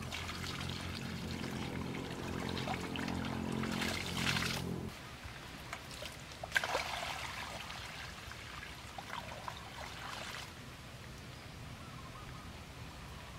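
Water poured from a round pot splashing into a shallow pool of water, in two pours: the first runs about five seconds, the second from about six and a half to ten and a half seconds in. A low steady hum sounds under the first pour and stops abruptly with it.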